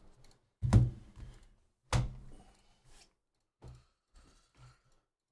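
Two sharp thumps about a second apart, then a few fainter knocks, as objects are handled and set down on a table.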